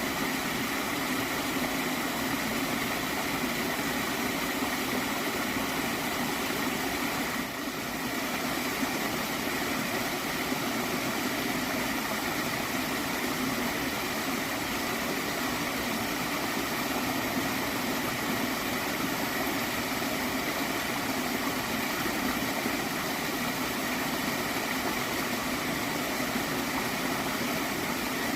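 Gently flowing stream of water gurgling steadily, with a brief dip in level about seven seconds in.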